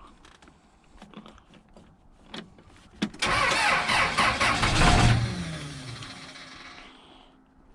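Case 580 Super L backhoe's diesel engine cranked by its starter for about two seconds without firing, then the starter winds down with a falling pitch, after a few faint clicks. The owner blames a dead battery.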